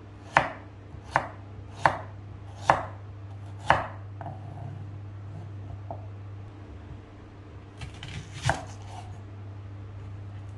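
Chef's knife chopping carrot and onion on a wooden cutting board: five sharp knocks of the blade hitting the board in the first four seconds. Then a quick run of lighter cuts ends in one hard knock about eight and a half seconds in.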